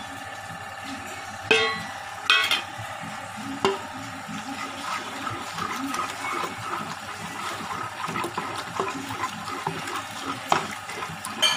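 Metal spoon stirring thick, wet spinach paste in a pressure-cooker pot, mixing in flour, with soft scraping and squelching and a few sharp clinks of metal on the pot, most of them in the first four seconds. A steady faint hum runs beneath.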